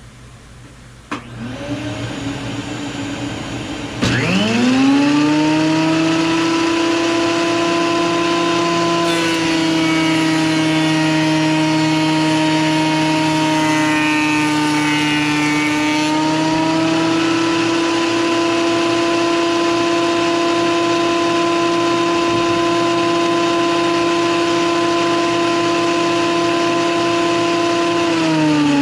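Bauer 15-amp 12.5-inch portable thickness planer: the motor starts up sharply with a rising whine and then runs steadily. For several seconds in the middle its pitch sags slightly under an added hiss as a board is fed through and planed. Near the end the motor is switched off and winds down with a falling whine. A quieter motor hum comes on about a second in, before the planer starts.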